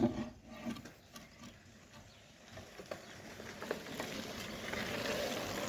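Bicycles ridden past by a line of children: a soft rustling hiss that builds from about halfway through and peaks near the end, with a few light clicks early on the way.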